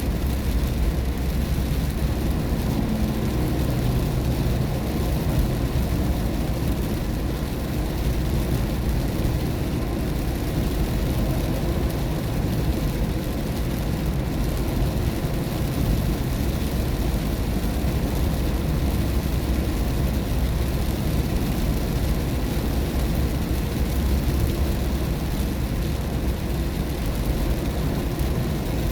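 Steady low rumble of a car driving on an expressway in the rain, heard inside the cabin: engine and tyre noise with the hiss of rainwater.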